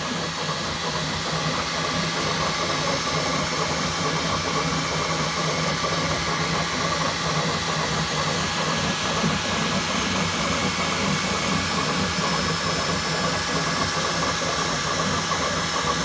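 Bambu Lab 3D printer running mid-print: a steady whirring hiss of its fans and motors, with a low hum and a few faint steady tones.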